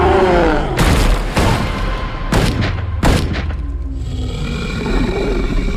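Movie-trailer sound design: a creature roar trailing off at the start, then four heavy boom hits over about two and a half seconds, followed by a held, sustained music chord.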